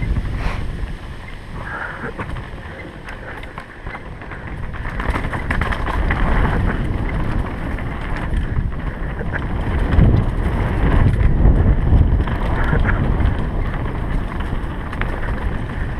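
Wind buffeting the microphone over a low rumble and scattered clatter, as from a mountain bike rolling down a rough trail. It dips a couple of seconds in, then grows louder from about five seconds on.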